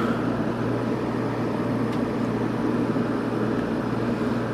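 1988 Sears Kenmore 6000 BTU window air conditioner running steadily while cooling: the fan's air rush over a constant low hum from the running compressor.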